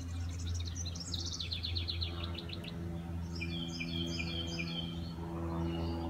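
Songbirds singing: a rapid trill of high repeated notes in the first half, then a quick series of short high notes a little past the middle, over a steady low hum.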